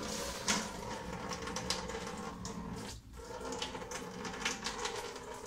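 Washer fluid gushing out of a disconnected rubber supply hose at the bottom of a full windshield washer tank and splashing into a plastic bucket, as a steady noisy rush.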